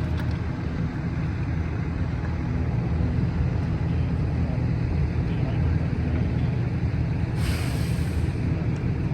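A heavy vehicle engine idling steadily with a low rumble, with a sharp hiss of released air lasting about a second near the end.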